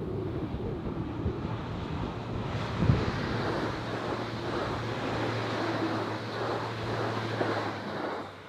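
Two coupled AGC regional multiple units passing close by: a rush of wheels on the rails with a steady low hum, which fades near the end.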